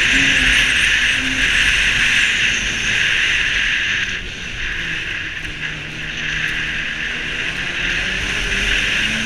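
Snowmobile engine running at speed under a steady rush of wind and track hiss, easing off a little around the middle and picking up again.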